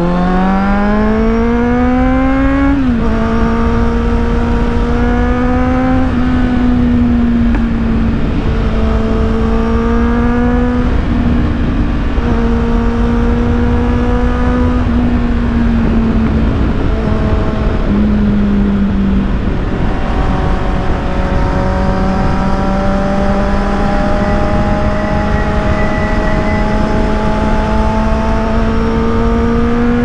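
Kawasaki Z800's inline-four through an Akrapovic exhaust under way: it revs up hard for about three seconds, drops at an upshift, then holds a nearly steady cruising note with small throttle swells and a brief easing off a little past halfway. Wind rushes on the microphone throughout.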